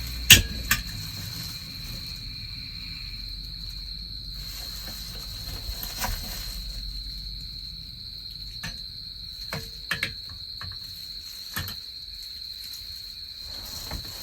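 Crickets trilling steadily in a high, unbroken chorus, with scattered sharp clicks and knocks over it, the loudest about a third of a second in and a pair around ten seconds.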